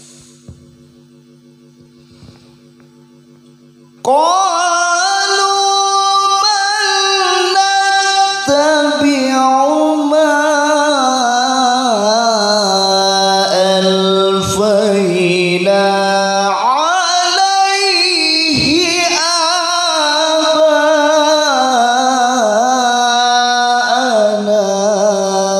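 A man reciting the Qur'an in the melodic tilawah style into a microphone, beginning about four seconds in with long, ornamented drawn-out notes and a few brief breaks for breath, fading near the end. Before he starts, only a steady electrical hum is heard.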